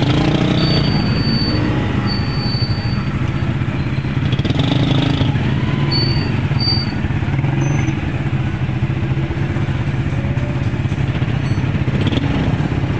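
A motor vehicle engine running steadily, with a constant low hum, and voices faintly in the background.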